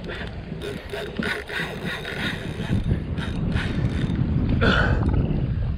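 Fishing reel ticking and whirring in irregular bursts as line is worked, over a low rumble of wind and boat noise that grows louder.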